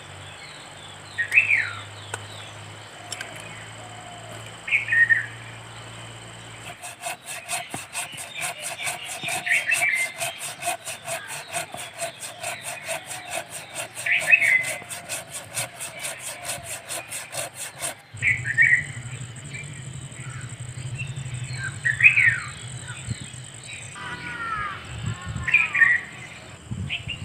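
Birds calling repeatedly outdoors, short falling whistled notes every few seconds, over a steady high hum. From about seven seconds in, a fast, even rasping pulse joins and stops abruptly around eighteen seconds.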